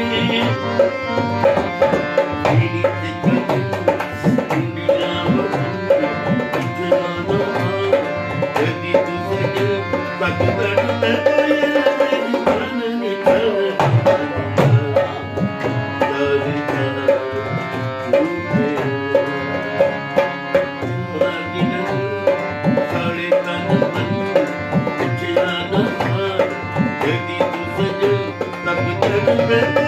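Harmonium playing a melody over held notes, with a dholak (two-headed barrel drum) beating a steady rhythm.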